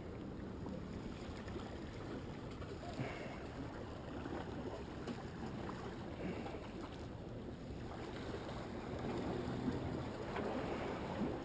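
Steady wind rumbling on the microphone, mixed with the wash of surf.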